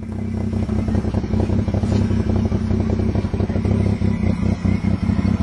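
Pickup truck engine running steadily under load while towing a car through snow, with a dense rattling flutter over the engine note.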